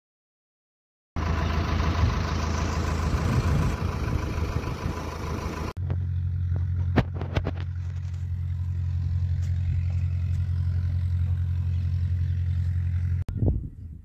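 Diesel engine of a JCB 3DX backhoe loader running, starting abruptly about a second in; after a sudden cut it settles into a steady low drone, with a few sharp clanks partway through, and it cuts off just before the end.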